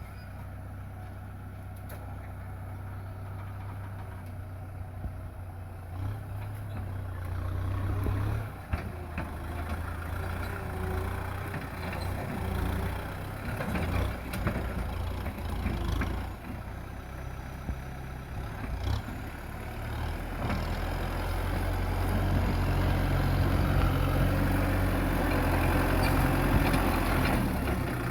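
Kubota M6040 tractor's four-cylinder diesel engine running steadily, with a few short knocks partway through. It grows louder over the last third.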